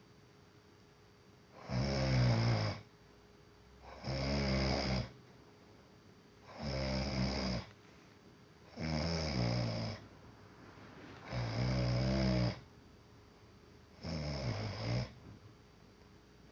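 A sleeper snoring in a slow, regular rhythm: six snores, each about a second long, roughly two and a half seconds apart, with quiet breaths between.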